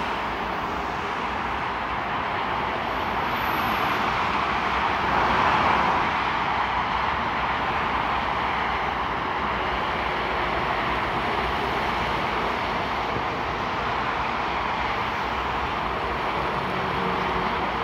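Continuous noise of fast motorway traffic, the tyres and engines of vans, cars and articulated lorries passing below, swelling slightly about five seconds in. A lorry's low engine hum comes through near the end.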